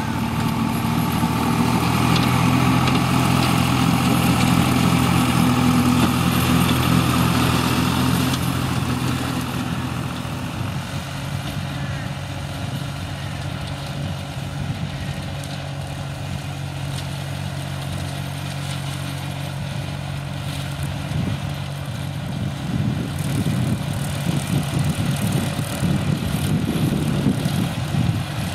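Ferrari Cobram 65 RS compact tractor's engine running steadily while it drives a rear slasher mower through long grass. It is louder for the first eight seconds or so, then eases to a slightly lower hum.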